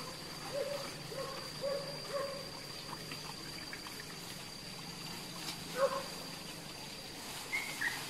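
Hunting dogs barking and yelping in short calls: four in the first couple of seconds, another near six seconds and a higher-pitched pair near the end. A steady high-pitched whine runs underneath.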